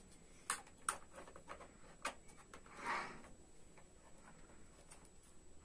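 Light clicks and taps of hard plastic as the parts of a toy airplane playset are handled and opened, with a brief soft scraping sound about three seconds in.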